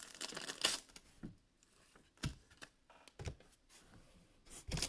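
Faint crinkling of a plastic bag of card sleeves being handled, then a few separate soft clicks and taps as trading cards are handled on the table.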